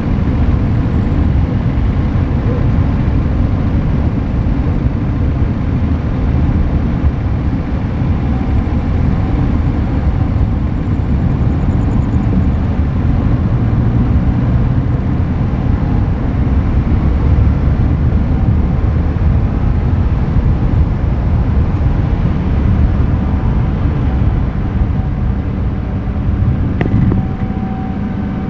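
Road noise of a moving car, picked up outside the vehicle: a steady low rumble of tyres on asphalt.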